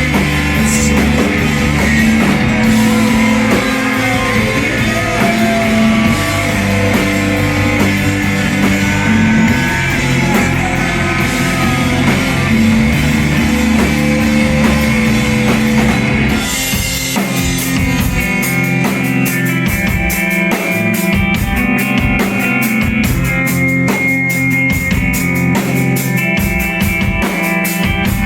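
Emo rock band playing live, instrumental with guitars, bass and drums. The guitars hold ringing chords at first, then a little over halfway the drums and cymbals come in hard with fast, steady strikes.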